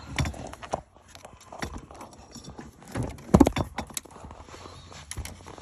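Handling noise as speaker wire is tucked under car dash trim: irregular knocks, taps and clicks of hands on plastic panels and wire, with a louder knock cluster about halfway through.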